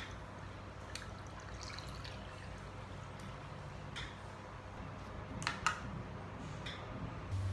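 Water poured from a glass pitcher into a drinking glass of ice cubes, with a few light knocks and clinks, the loudest pair a little past halfway.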